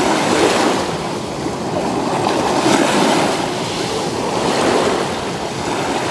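Small sea waves breaking and washing in at the shoreline, coming in about three surges.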